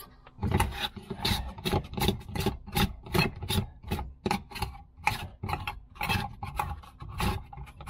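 Chevy HHR's plastic spare-tire hold-down knob being screwed down by hand onto its stud, making a quick run of short rubbing strokes, about three a second, as it is turned over and over to clamp the spare wheel.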